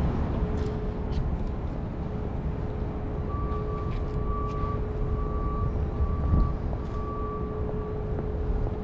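City traffic noise: a steady low rumble with a constant hum. From about three seconds in, a run of about six evenly spaced high beeps sounds over it.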